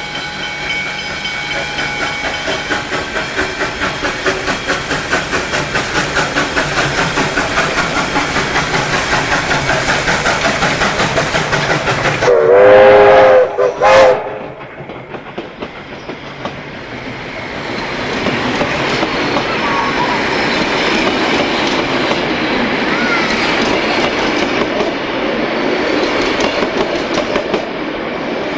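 Victorian Railways K class 2-8-0 steam locomotive K183 approaching and passing, its exhaust beating in a quick, regular rhythm that grows louder. About twelve seconds in its steam whistle sounds loudly for over a second, then gives a short second blast. After that the passenger carriages roll by, their wheels clicking over the rail joints.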